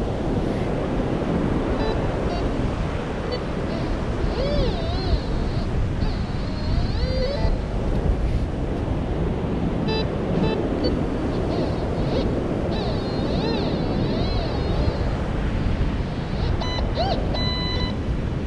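Surf and wind buffeting the microphone, with a few short electronic beeps from a metal detector and pinpointer and some wavering high tones.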